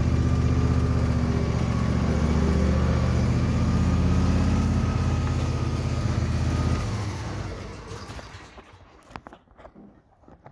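John Deere lawn tractor engine running steadily, then shut off about seven seconds in and running down over a second or so. A few faint clicks follow.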